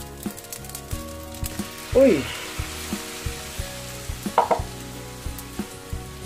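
Rice and egg sizzling in a frying pan, with scattered sharp clicks and crackles as dry Cup Noodles noodles are poured and crumbled by hand into the pan. A short exclamation about two seconds in is the loudest sound.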